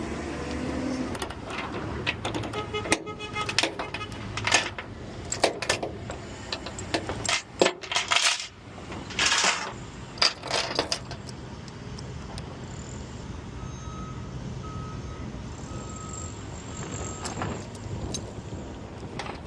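Irregular metallic clinking and knocking, densest in the first half, over a truck engine idling steadily. A few short beeps sound near the end.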